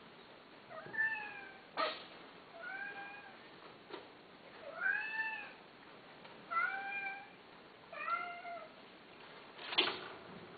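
A cat meowing five times, each meow rising then falling in pitch. There is a sharp knock about two seconds in and a louder one near the end.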